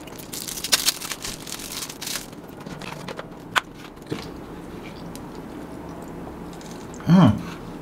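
Plastic crinkling and tearing as a straw is unwrapped for a small drink carton, then a sharp click about three and a half seconds in as the straw is pushed through the carton's seal. Near the end there is a short voiced hum.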